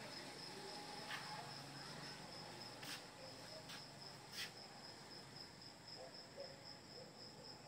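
A cricket chirping faintly in a steady, evenly pulsing high trill, with a few short sharp clicks in the first half.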